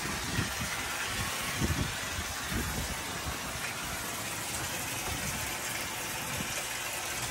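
Garden hose nozzle spraying water onto a rubber EPDM pond liner and into a shallow layer of water: a steady hiss and splash, with a few low thumps in the first three seconds.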